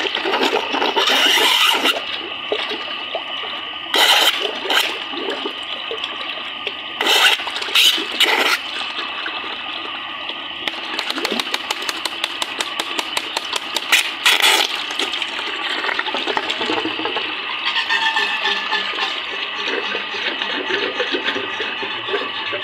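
Water gushing from a donkey pump's delivery hose into a plastic tub, splashing over a hand held in the stream, with a few louder bursts of splashing. The strong flow shows the pump's raised pressure after its boki (piston cup) was replaced.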